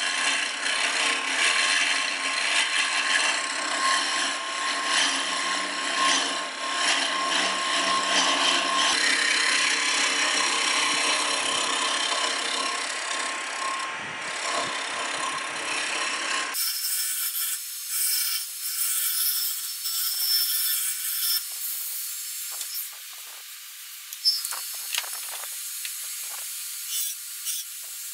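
Wood lathe spinning a spindle while a hand-made turning tool cuts into the wood: a steady, dense cutting and scraping noise. About halfway through, the sound changes abruptly to a thinner, hissier cut with scattered ticks, the low part gone.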